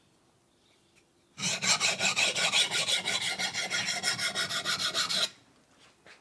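Knife blade scraped back and forth on a diamond sharpening hone: a steady rasping in quick, even strokes that starts about a second and a half in and stops about four seconds later. This is the grinding that raises a burr along the edge.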